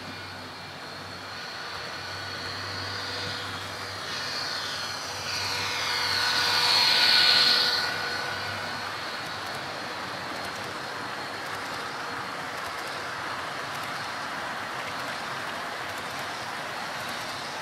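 Model train approaching and passing close by: a rising motor whine and rumble peaking about seven seconds in, then the double-stack container well cars rolling steadily over the track.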